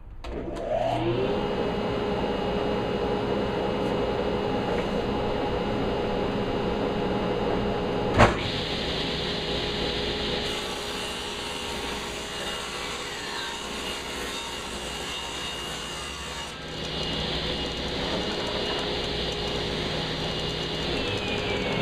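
Electric power saw spinning up and running steadily while cutting wood, with one sharp knock about eight seconds in; near the end its pitch starts to fall as it winds down.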